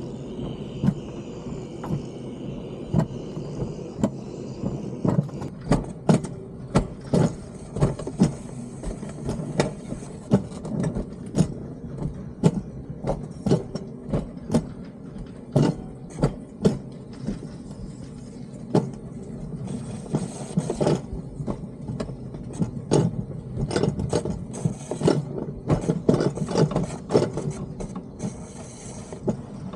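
Alpine coaster sled running down its steel tube rails: a steady rumble from the wheels on the track, broken by frequent sharp, irregular clacks and knocks.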